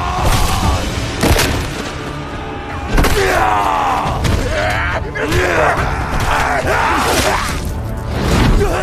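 Battle sound effects of a few heavy thuds and impacts, with men's strained cries and grunts rising and falling between them, over a dramatic score.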